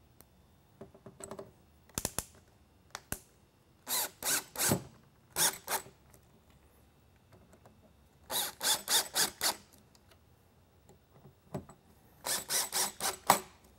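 Cordless drill/driver driving screws into a plastic lightbar top in quick runs of short trigger bursts, with groups about 4, 8.5 and 12.5 seconds in and pauses between them.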